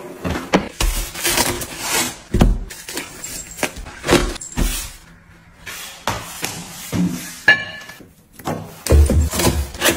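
Household handling sounds in a kitchen: a cabinet drawer sliding, a placemat being laid and smoothed down, then ceramic plates and a fork set down with knocks and clinks, one of which rings briefly about seven and a half seconds in.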